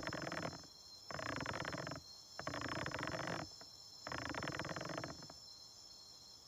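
Crickets chirping: four trills of about a second each, evenly spaced, over a steady high insect hum.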